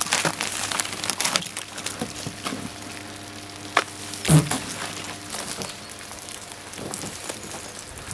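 Snow shovel digging into and scraping through heavy wet, icy snow, with crunching and crackling and a few sharp knocks, the loudest about four seconds in. Footsteps crunch through the snow near the end.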